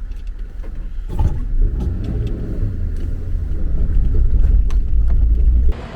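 4x4 vehicle driving on a rough lane: a low engine and road rumble that grows louder about a second in, with scattered light knocks. It cuts off abruptly near the end.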